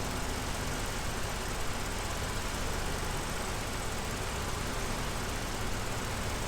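Vauxhall Corsa E 1.4 Ecotec petrol engine idling steadily with its mass air flow sensor unplugged, under the even rush of the electric radiator cooling fan. The engine has been misfiring and running lean; with the air mass meter disconnected it runs smoother but not perfectly.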